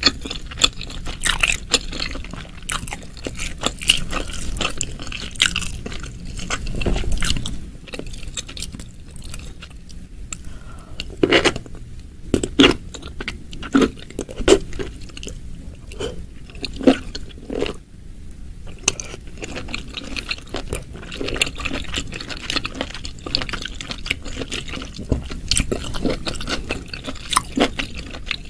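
Close-miked chewing of soft mushrooms coated in thick spicy sauce: wet, sticky mouth smacks and squelches, with a run of louder smacks about halfway through.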